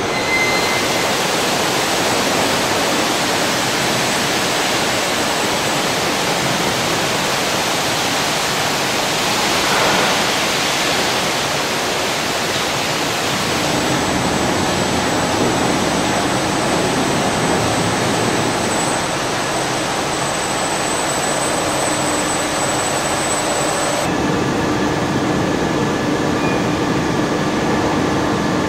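Steady, loud rushing noise of car paint-shop machinery and process plant. Its tone shifts a little about halfway and again near the end.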